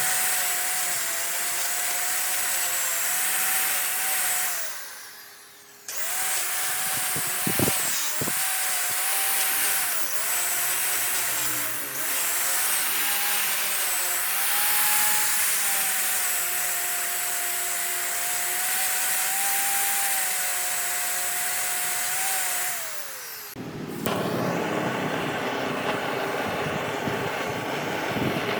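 A high-speed power tool cutting or sanding wood: a steady motor whine that sags in pitch each time it bears into the wood. It stops and winds down about five seconds in, starts again, then winds down near the end, followed by a few seconds of a rougher, different noise.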